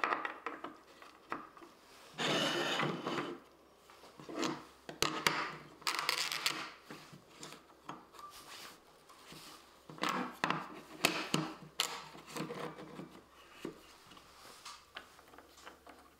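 Handling noises on a wooden workbench: plastic bench stops and a clamp are set into the bench and a pine board is slid and pushed against them. Irregular knocks mixed with a few longer rubbing scrapes.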